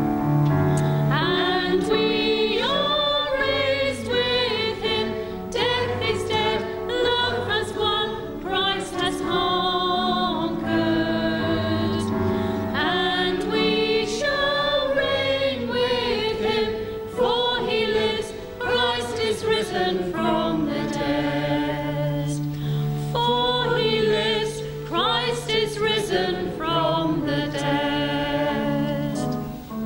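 Voices singing a hymn with vibrato over steady, sustained low accompanying notes.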